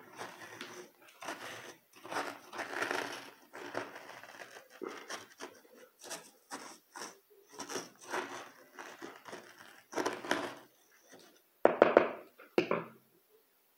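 A small hand tool scraping and digging through gritty, sandy potting mix in a plastic pot, an irregular crunching as the soil around an azalea cutting is loosened to lift it out, with a few louder scrapes near the end.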